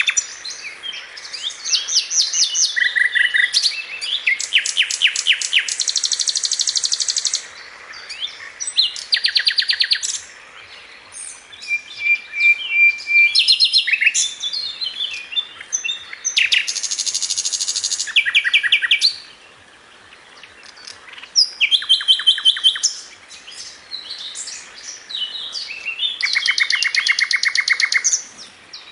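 Small songbirds chirping and trilling: fast series of high, repeated notes in bursts of one to three seconds, several birds overlapping, with brief lulls in between.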